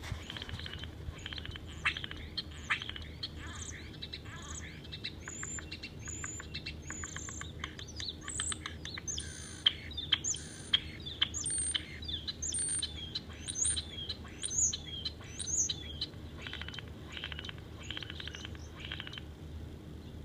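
Starling singing a long rambling song of rapid clicks and rattles mixed with high whistles and short gliding notes, with mimicked sounds of other birds and noises woven in.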